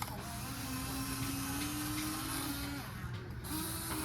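Small electric motors of a radio-controlled toy excavator whining as it works; the whine breaks off just before three seconds in and starts again half a second later.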